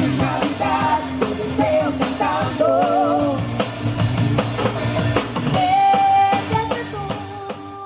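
A girl singing into a microphone over backing music with drums, with vibrato on a note about three seconds in and a long held note about six seconds in.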